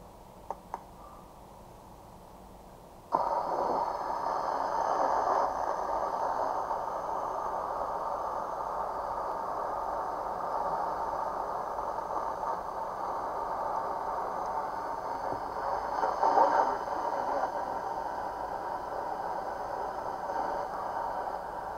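Weather radio switched on about three seconds in, giving a steady hiss of static from its small speaker with no clear broadcast coming through. Two small clicks come shortly before it starts.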